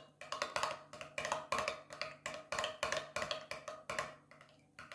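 Metal spoon clinking quickly against a small glass mixing bowl while beating softened butter, shortening and oil together, with about four or five taps a second and a short ring from the glass; the strokes ease off near the end.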